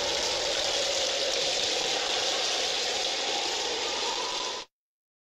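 Steady rain sound effect, an even hiss of falling rain that cuts off suddenly about four and a half seconds in.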